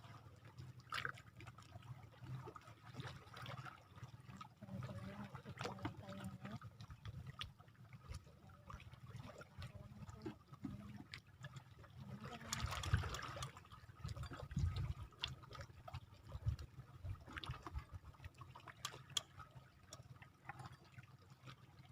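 Shallow seawater lapping and trickling at the shoreline, with small irregular splashes and one louder wash of water about thirteen seconds in.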